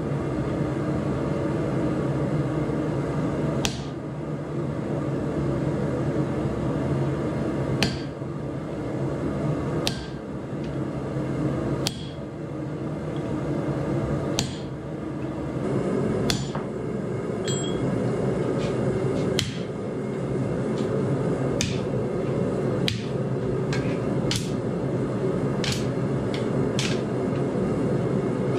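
Hand hammer striking red-hot steel bar stock on an anvil during forging: about a dozen single blows, a few seconds apart at first and coming faster in the second half, over a steady background hum.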